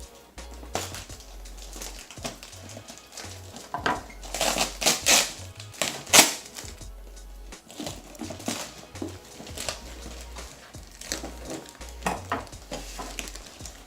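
Cardboard box and packing being handled and pulled open, with rustling, crinkling and a few sharp knocks; the loudest knock comes about six seconds in. Background music plays underneath.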